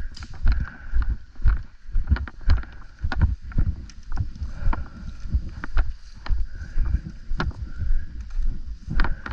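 Footsteps and rustling: uneven low thumps about two a second, with scattered sharp clicks.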